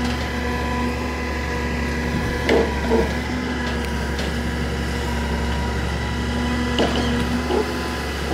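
Engine running steadily with a low hum, under a claw garbage truck's grapple loading carpet, with a few short dull knocks about two and a half and three seconds in and again near the end.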